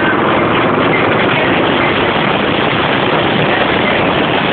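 Harley-Davidson motorcycle running steadily under way, mixed with heavy wind buffeting on the camera's microphone.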